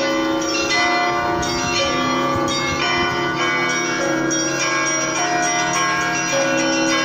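Russian Orthodox church bells ringing. Many bells of different pitches are struck one after another, about once a second, and their ringing overlaps into a steady peal.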